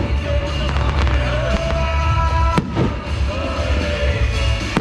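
Aerial fireworks shells bursting, with one sharp bang about two and a half seconds in and fainter pops before it, over music with long held notes and a steady low rumble.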